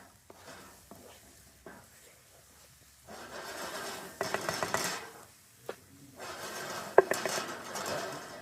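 Cooking utensils scraping and clinking against cookware in two bouts, with one sharp clink about seven seconds in.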